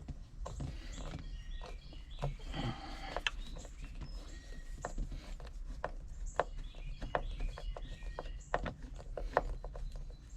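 Irregular light clicks and metal taps, with a short scraping rustle about two and a half seconds in, as a small sheet metal screw is worked into the 1961 VW Beetle's tunnel access cover.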